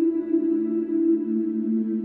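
Ambient background music of long held tones, moving down to a lower note about half a second in.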